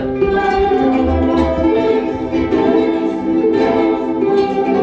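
A group of ukuleles strumming chords together, repeated strums ringing on without a break.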